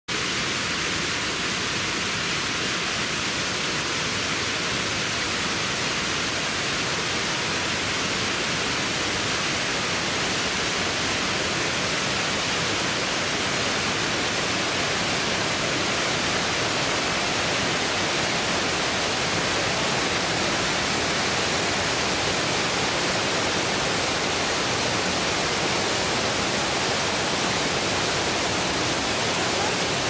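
Shiraito Falls, hundreds of thin waterfalls spilling down a 20 m curved cliff: a steady, even rush of falling water.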